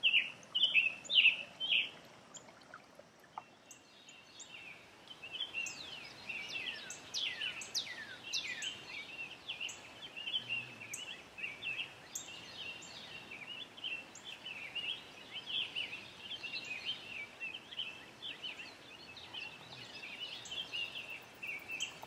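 Several wild birds singing and chirping: a quick run of loud repeated notes in the first two seconds, then, after a short lull, a dense, continuous chorus of short chirps and downward-sweeping calls.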